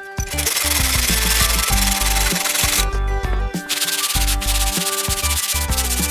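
Wooden slat being hand-sanded with a sanding block: continuous rasping rubbing strokes, breaking off for under a second about three seconds in, then resuming. Background music plays underneath.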